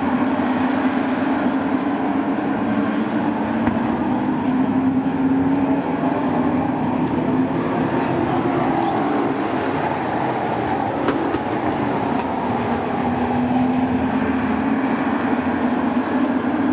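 A field of short-track racing trucks running laps, their engines making a loud, steady drone whose pitch sags a little midway and climbs back as the trucks go around the oval.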